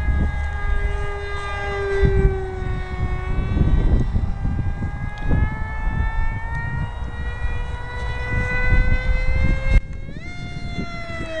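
Brushless electric motor and propeller of an RC foam F-22 jet in flight, a high whine with many overtones whose pitch drifts slowly down and then up, and rises sharply near the end as the throttle comes up. A low rumble of wind on the microphone runs underneath.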